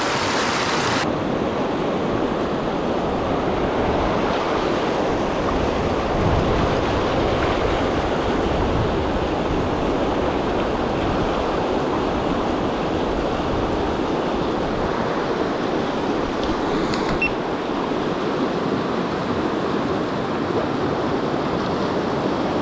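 River current rushing steadily, an even wash of flowing water.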